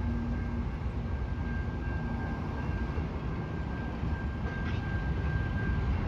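Freight train passing: the trailing GE ET44AC diesel locomotives rumble by, giving way to the rumble of loaded covered hopper cars on the rails. A steady high tone from the grade-crossing signal sounds over it.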